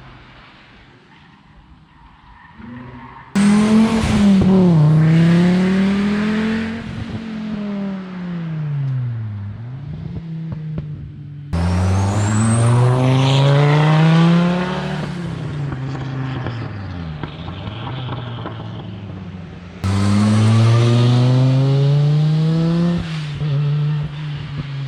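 Rally car engines revving hard, the pitch climbing and dropping as they shift through gears. Three loud runs cut in abruptly, about three, eleven and twenty seconds in, after a quieter engine at the start.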